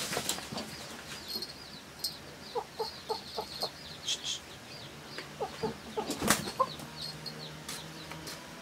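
Chickens clucking in short runs of quick notes, over a steady scatter of high, short peeping chirps. A sharp knock about six seconds in is the loudest sound.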